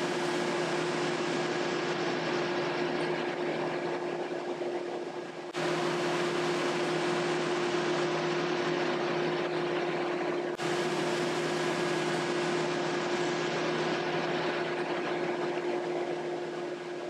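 Wide-belt sander running: a steady hum with a clear mid-pitched tone and a lower one over a strong hiss. It breaks off and comes straight back twice, about five and ten seconds in.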